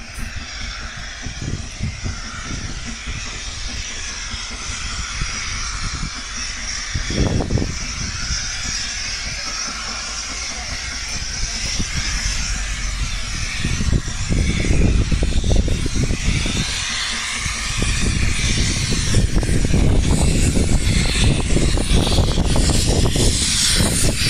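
Steam locomotive approaching, a steady hiss of steam with a low rumble, growing louder as it nears.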